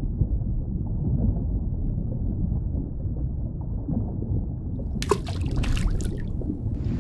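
A steady low rumbling noise, like water churning, with a short burst of clicks and crackles about five seconds in.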